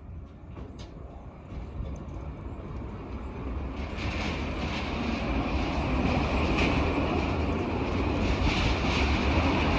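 Rumble of a funicular railway car running on its track, growing steadily louder over several seconds.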